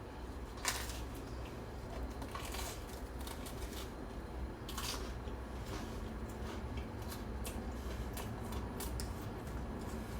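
Scattered small clicks and light rustling over a low steady hum, with a few sharper clicks in the first five seconds.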